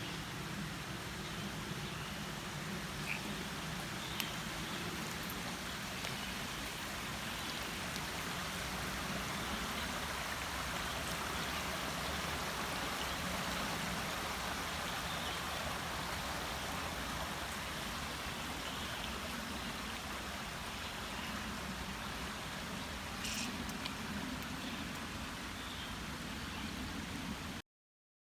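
Creek water running steadily, an even rush of flowing water, with a few faint ticks.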